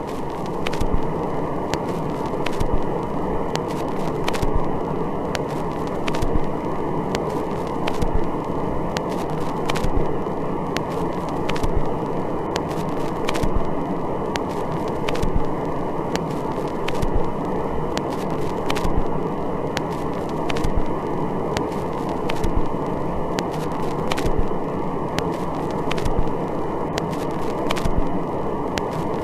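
A steady low rushing noise with crackling clicks scattered throughout, swelling slightly about every two seconds.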